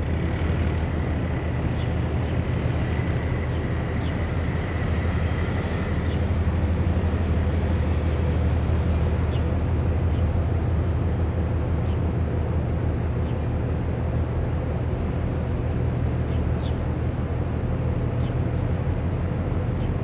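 Low, steady engine drone from a large container ship passing close by, with a faint high tone over it for the first few seconds.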